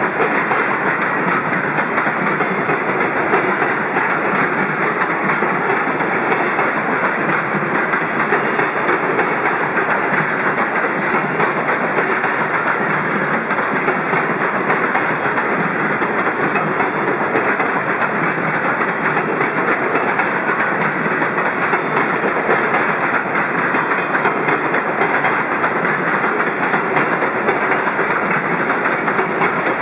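Freight train of container wagons rolling past at close range: a steady, loud rumble with the wheels clattering over the rail joints.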